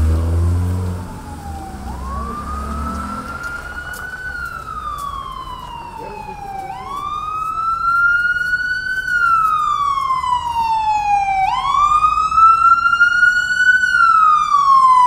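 Emergency vehicle siren on a wail cycle, rising then falling slowly three times and getting louder as it approaches. A low rumble of traffic at the start fades in the first couple of seconds.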